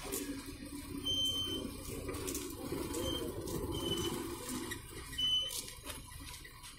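Four short, high-pitched electronic beeps at uneven intervals, each a steady tone, over a low background murmur.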